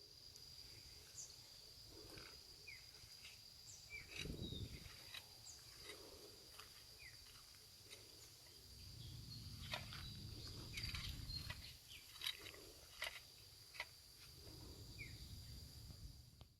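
Faint outdoor ambience: scattered short high bird chirps and small clicks over a steady thin high-pitched tone, with a low rumble that swells for a few seconds in the middle.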